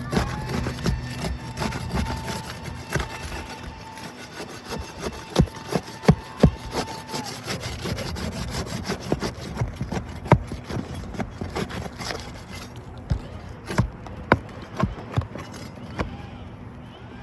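Roof shingles being pried loose and their nails worked out: scraping and rubbing with irregular sharp clicks and knocks from the tool, the loudest around six seconds in and again around ten and fourteen seconds in.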